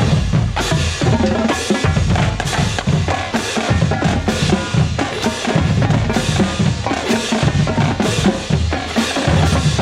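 Marching band playing, with the drums loudest: rapid snare and bass drum strokes over sustained band notes.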